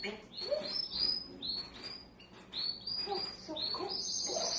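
Pet parrot chirping: a quick run of short, high whistled notes, ending in one longer held whistle near the end.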